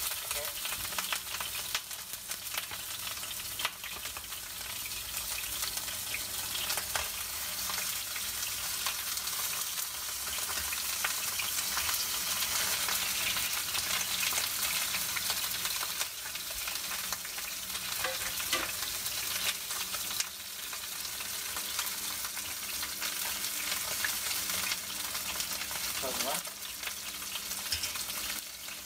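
Pieces of Asian sea bass (barramundi) sizzling in hot oil in a frying pan, a steady hiss with scattered sharp crackles. The fish is being given a quick shallow fry to firm the flesh.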